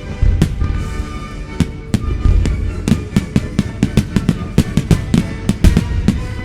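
Music playing while aerial fireworks go off in an irregular run of sharp bangs, coming thick and fast from about three seconds in.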